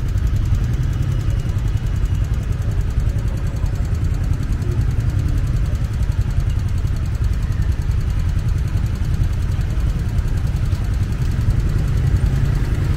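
Motorbikes idling in stopped city traffic: a steady low engine rumble with street noise.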